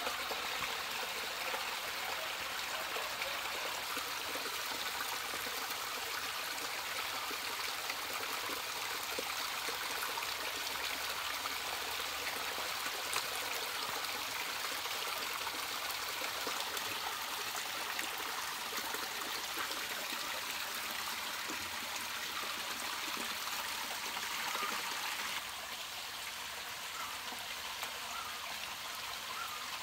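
Water from a small rock spring trickling and splashing steadily down a rock face; the sound drops a little in level near the end.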